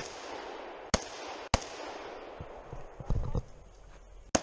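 Shots from a semi-automatic .308 Winchester rifle, each followed by a short echo. Three come in quick succession, under a second apart, then after a pause of nearly three seconds with a few dull thumps, one more shot comes at the end.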